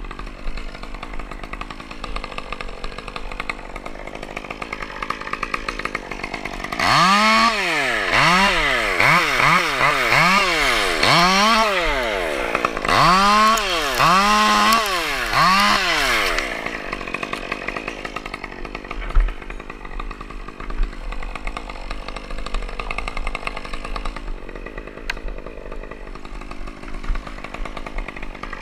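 Two-stroke chainsaw idling, then revved hard for about ten seconds in repeated surges that rise and fall in pitch roughly once a second, before dropping back to idle.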